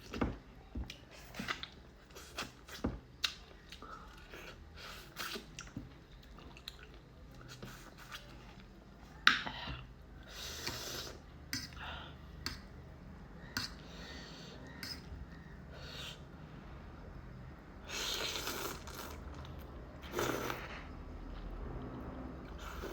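A person eating spicy noodles with corn close to the microphone: chewing, with scattered sharp clicks and a few short noisy bursts.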